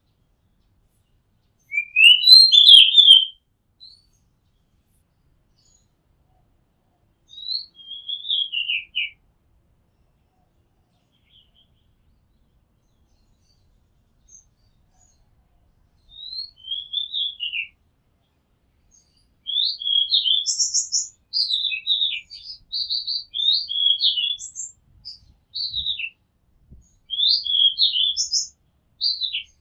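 Oriental magpie-robin singing: short, varied whistled phrases with gaps of several seconds, the loudest about two seconds in, then a near-continuous run of phrases over the last ten seconds.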